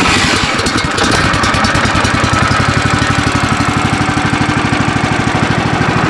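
The gas engine of a Woodland Mills HM130MAX band sawmill, a Kohler, has just been started cold on its electric starter with the choke on. It runs steadily with an even, rapid beat.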